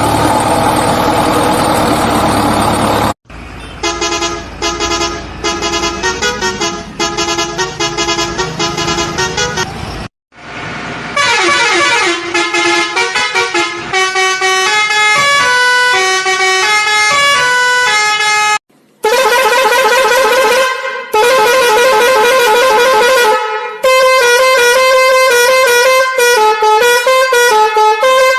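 A string of electronic musical horn tunes, each a quick run of notes stepping up and down in pitch, cut together with abrupt breaks between them. The first three seconds are a noisier vehicle-like sound with steady horn tones in it.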